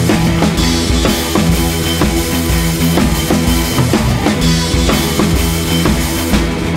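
Background music with a steady drum-kit beat of bass drum and snare.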